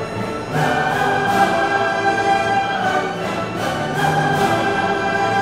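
Orchestral music, strings playing long held notes over a steady pulse.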